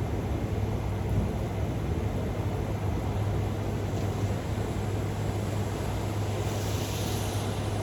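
Thunderstorm background: a steady low rumbling noise as the rumble of a thunderclap trails off, with a brief hiss about seven seconds in.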